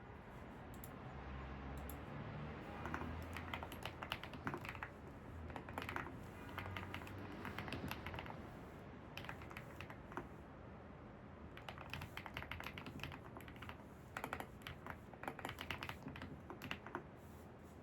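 Typing on a computer keyboard: quick runs of key clicks in bursts, with a short pause a little past the middle.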